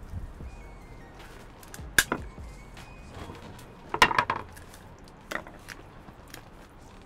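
Hammer striking a whole fresh coconut to crack its shell: a sharp knock about two seconds in, then a quick cluster of knocks and cracks about four seconds in, and a lighter knock after that.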